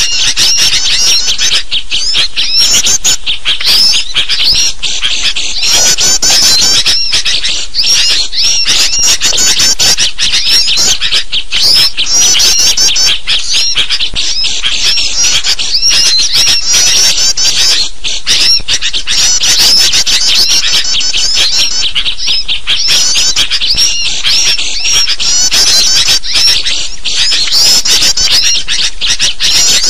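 Dense, continuous chorus of agitated chirping and scolding calls from sooty-headed bulbuls mixed with other small birds, overlapping with no pauses. It is a bird-lure recording of noisy, alarmed calls, made to draw wild birds in.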